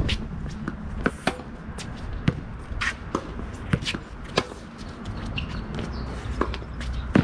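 Tennis ball being hit back and forth in a groundstroke rally on a hard court: sharp pops of the ball off racket strings and its bounces on the court, coming every half second to a second or so.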